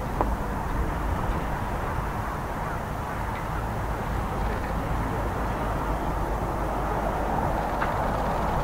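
Distant jet noise from a formation of Kawasaki T-4 twin-turbofan trainers climbing overhead: a steady, even rumble with no distinct changes.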